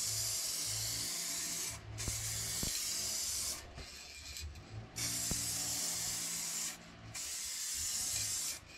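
Aerosol can of 2K clear coat lacquer spraying onto a bicycle frame: four bursts of hiss, each a second and a half to two seconds long, with short breaks between.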